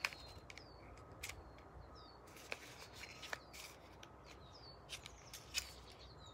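Faint clicks and crackles of a small cardboard cosmetics box being picked open by hand, with a bird calling repeatedly in short falling chirps.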